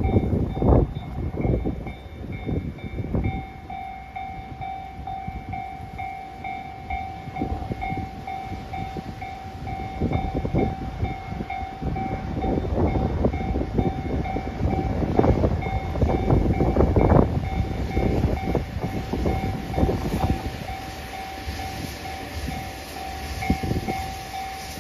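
JR Hokkaido H100 diesel-electric railcar standing at the platform, running with a steady high whine, over irregular low rumbling.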